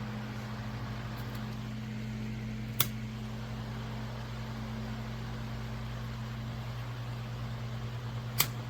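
Electric fan motor running with a steady hum and rush of air, with two sharp clicks, one about three seconds in and one near the end.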